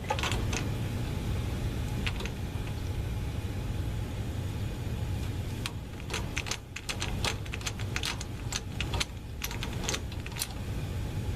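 Scattered light metallic clicks and taps of a screwdriver and small magnet being handled against metal parts, thickest a little past the middle, over a steady low rumble.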